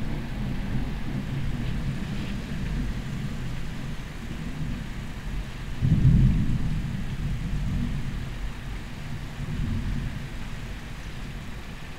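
Distant thunder from a monsoon thunderstorm rumbling low and continuously, swelling to its loudest about halfway through.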